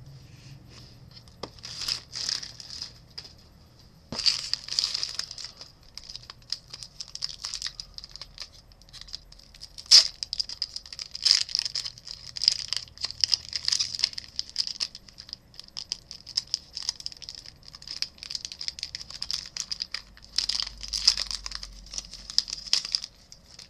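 Foil wrapper of a Topps UFC trading card pack crinkling and being torn open in irregular bursts of crackling rustle, with one sharp crack about ten seconds in.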